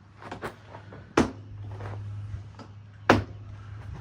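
Hands handling the plastic housing of a robot mower: a couple of small clicks, then two sharp knocks about two seconds apart as parts are pressed into place. A low steady hum sets in after the first knock.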